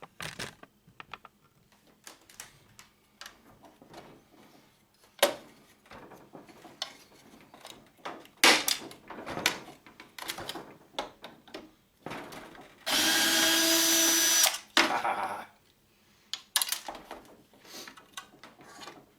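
Power drill/driver running steadily for about two seconds in the middle, with scattered clicks and clanks of metal parts being handled before and after it, as a printer is taken apart.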